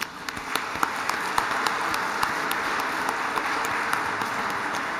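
A congregation applauding: many people clapping steadily.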